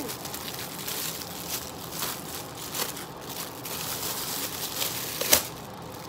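Thin clear plastic packaging bag crinkling and rustling as it is handled and a silicone pop-it toy is pulled out of it, with a sharp snap a little after five seconds in.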